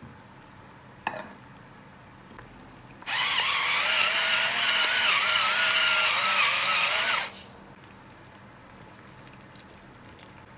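Electric pepper mill grinding black pepper: its small motor runs for about four seconds with a wavering whine, then stops abruptly. A short click comes about a second in.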